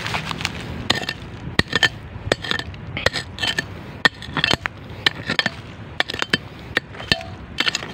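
A hand digging tool chopping and scraping into stony soil: irregular sharp strikes, sometimes several a second, some with a brief metallic ring as the blade hits stone.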